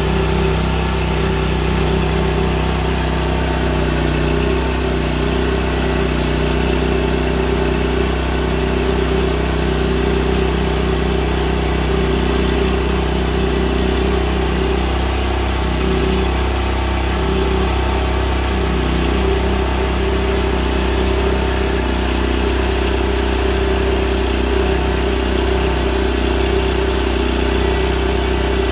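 Big Red XP portable band sawmill running steadily, its engine driving the band blade through an oak log in one continuous cut.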